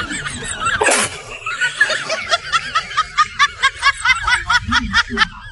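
High-pitched laughter: a fast, even run of short snickers, about five a second, through the second half. A short sharp noise comes about a second in.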